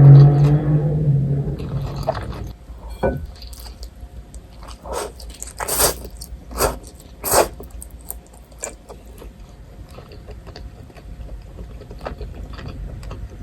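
A low steady hum fades out over the first couple of seconds. Then come a series of separate crisp crunches and chewing sounds from someone eating, the loudest about six and seven and a half seconds in.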